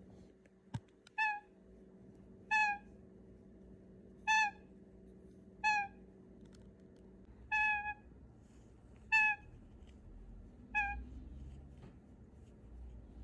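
Pet parrot calling: a short, clear call repeated seven times, about every one and a half seconds, each call dropping slightly in pitch.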